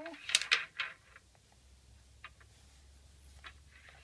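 Small hard toys being handled: a quick run of light clattering knocks in the first second, then a few faint scattered clicks.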